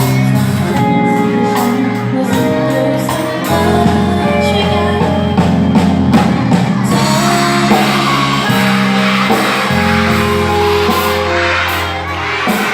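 Music: a song with singing and instruments playing.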